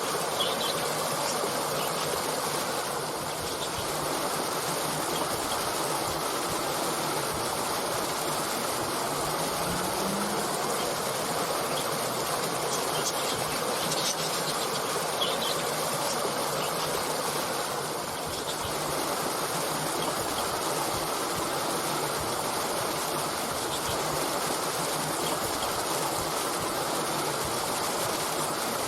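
Brook water flowing steadily, a constant rushing wash, with a few short bird chirps.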